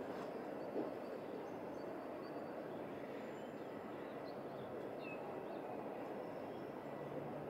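Steady outdoor background noise, a even low hiss and rumble such as distant traffic or wind, with a few faint high chirps and one soft thump about a second in.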